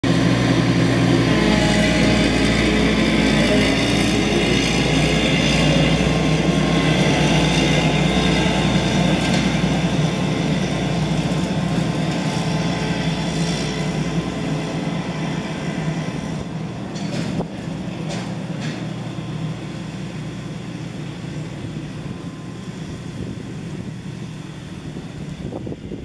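A Claas Lexion combine harvester's diesel engine running as the machine drives past. It is loud at first, then fades steadily as it moves away. Two sharp knocks come about two-thirds of the way through.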